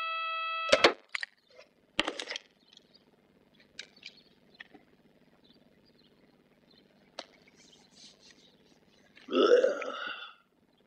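An alarm clock's buzzer sounds a steady tone and cuts off with a sharp click a little under a second in as it is switched off. A few faint rustles and clicks follow. Near the end an old man makes one short, throaty vocal noise, about a second long.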